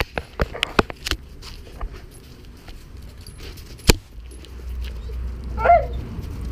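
Clicks and knocks of a body-worn action camera being jostled among Doberman puppies, with one sharp loud knock about four seconds in as a dog's head comes right up to the lens. A low rumble follows, and a short wavering whine sounds near the end.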